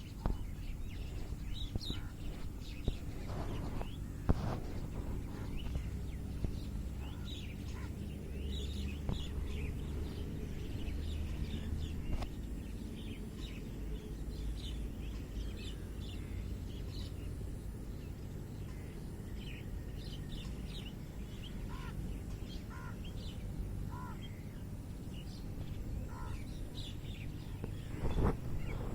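Several songbirds chirping and calling in short, high notes, scattered and overlapping, over a steady low rumble of background noise. There is a brief knock near the end.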